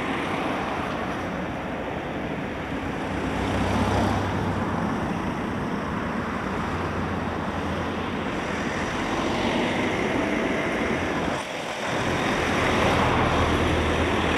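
Road traffic passing on a street: a steady noise of cars, with an engine hum that swells about four to eight seconds in and again near the end.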